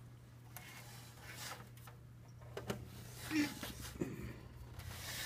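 Handling noise as a box fan is turned around by hand: rustling and a few soft knocks, over a low steady hum.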